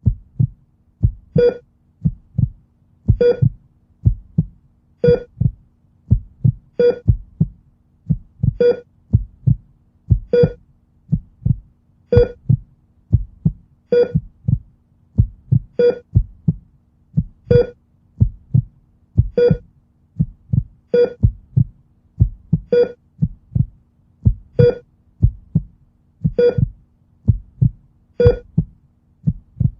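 Heartbeat sound effect: a group of low lub-dub thumps with a short high tone on each beat, repeating slowly and evenly about every two seconds over a faint steady hum.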